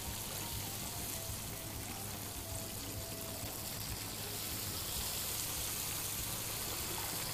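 Hot oil sizzling steadily in a deep pot as battered fish fillets fry. The hiss grows a little louder about five seconds in.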